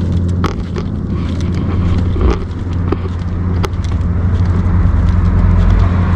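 Steady low rumble of road traffic, with scattered light clicks and knocks. A rushing hiss builds toward the end.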